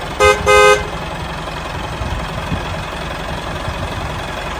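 Two short horn honks in the first second, then a tractor engine running steadily at idle.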